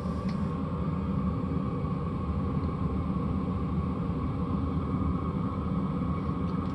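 5 kW diesel air heater running: a steady rumble from its combustion blower and burner, with a faint steady hum on top.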